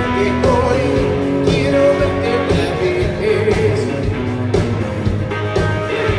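Live rock band playing: drums, electric guitar and bass in a stretch with no sung words.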